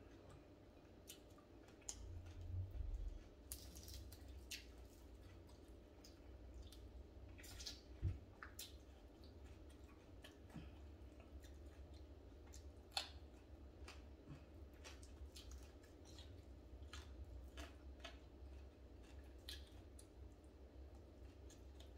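Faint, scattered wet clicks and smacks of eating fried tilapia by hand: fingers picking flesh off the fish and lips and mouth chewing and sucking, with one sharper click about eight seconds in. A low steady hum runs underneath.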